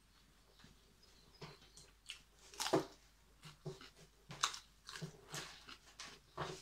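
A person chewing and crunching food, with short irregular crunches and mouth smacks, the loudest a little under three seconds in and again about four and a half seconds in.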